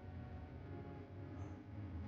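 Quiet background music with sustained notes.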